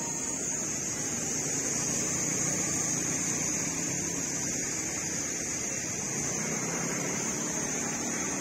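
A motor scooter passing and pulling away along the road, its small engine running steadily, under a steady high hiss.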